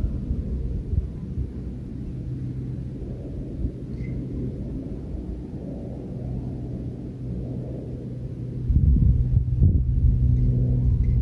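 Steady low rumble of a running engine with a constant hum, growing clearly louder about nine seconds in.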